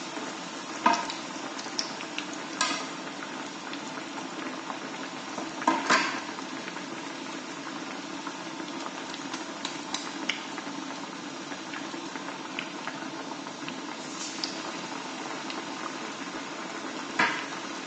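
Masala vadas deep-frying in hot oil in a wok: a steady sizzle and bubbling of the oil, broken by four sharp clinks spread through it.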